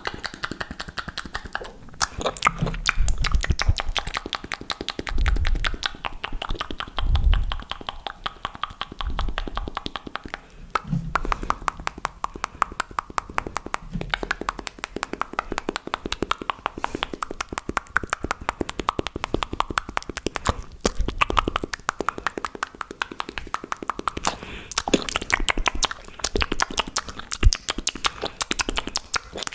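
Fast, aggressive ASMR mouth sounds close to the microphone: a rapid stream of wet clicks and pops, with low thumping swells every second or two during the first half.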